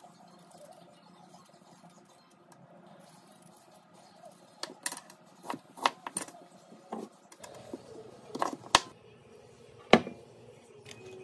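Faint peeling, then a knife slicing a pear on a plastic cutting board, the blade knocking on the board several times. Near the end come a few sharp clicks and knocks from handling a wine bottle and a waiter's corkscrew.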